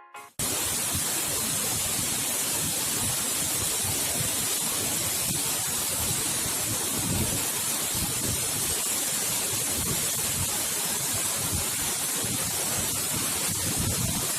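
Steady rush of a waterfall's falling water close by, an even hiss with no break or change.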